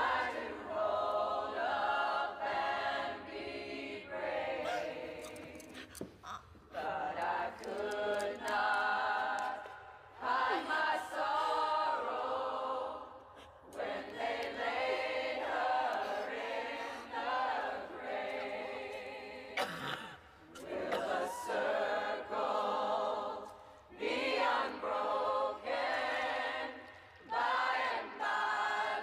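Choir singing a cappella in phrases a few seconds long, with short breaks between them.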